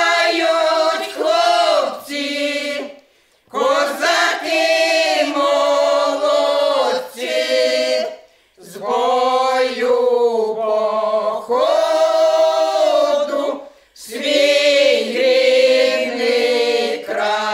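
Women's folk ensemble singing a Ukrainian folk song a cappella, in several voices. The song comes in four long phrases of held notes with short breaths between them.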